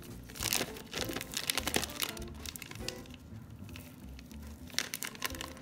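Plastic sausage wrapper crinkling and crackling irregularly as ground sausage is squeezed out of it by hand. The crackles are loudest about half a second in and again near the end.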